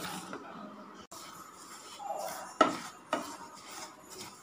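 Wooden spatula stirring black sesame seeds as they dry-roast in a nonstick pan: a rustling scrape of seeds across the pan, with a couple of sharp knocks of the spatula against the pan about two and a half and three seconds in.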